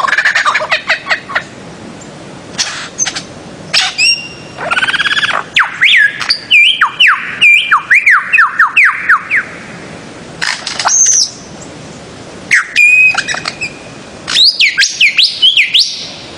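Paradisaea bird-of-paradise calling: loud bursts of rapid repeated notes that sweep up and down in pitch, each burst lasting a second or more, separated by short pauses.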